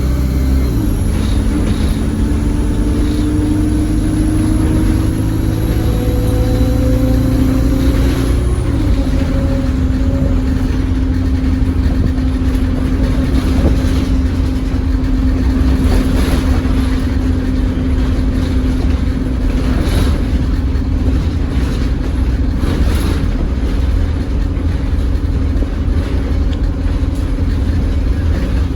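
ADL Enviro200 single-deck bus running: a hovery whine and the engine's drone climb in pitch for about eight seconds, then drop together. It then settles into a steady humming tone over a low drone, with a few short knocks and rattles along the way.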